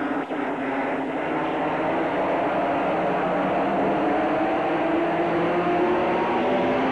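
A pack of late model stock cars' V8 engines running at racing speed, a steady drone whose pitch slowly rises and falls as the cars circle the track, on old camcorder audio.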